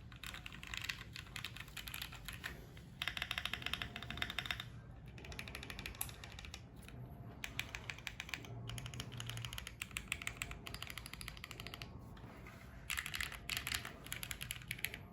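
Fast typing on a Monsgeek M1 mechanical keyboard with Gateron switches, a dense run of creamy keystrokes that comes in bursts, busiest about three seconds in and again near the end.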